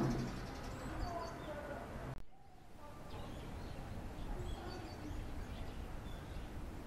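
Outdoor ambience with scattered faint bird chirps. A low steady hum fades away in the first two seconds.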